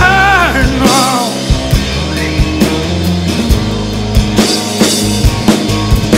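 A live band plays an instrumental passage on acoustic guitar, bass guitar and drum kit, with steady bass notes and repeated drum hits. A wordless sung vocal trails off in the first second or so, and cymbal washes swell near the end.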